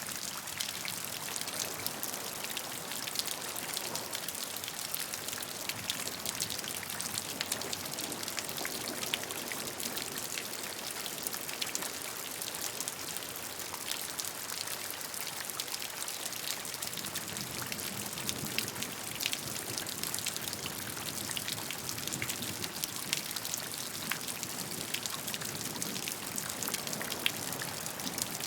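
Steady rain, with many individual drops ticking over a continuous hiss.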